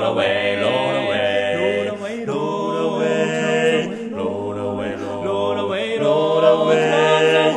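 Male barbershop quartet singing a cappella in close four-part harmony, holding long chords while the bass moves between notes underneath.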